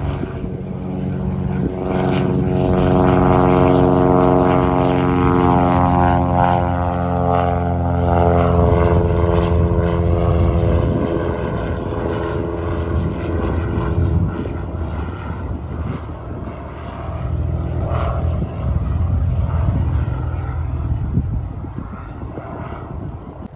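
Cessna 182 Skylane's six-cylinder piston engine and propeller at takeoff power as the plane lifts off and climbs away. The engine note is loudest in the first several seconds, then drops in pitch as the plane passes and carries on more softly as it recedes.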